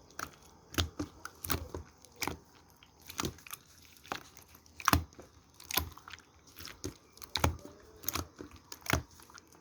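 Slime being pressed and squeezed by hand, giving sharp wet clicks and pops about once a second.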